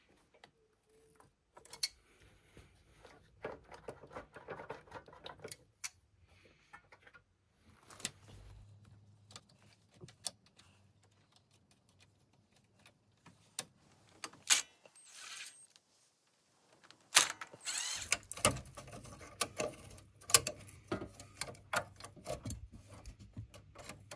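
Pliers and hand tools clicking, clinking and rattling against the metal parts of a riding mower: irregular sharp clicks, with busier handling noise near the end.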